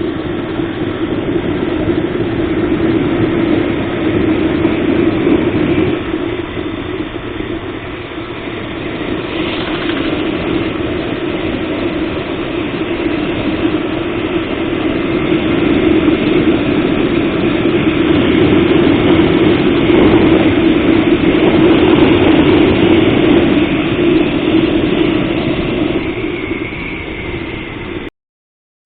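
Motorcycle engine running steadily while riding, swelling louder in the second half, then cutting off abruptly near the end.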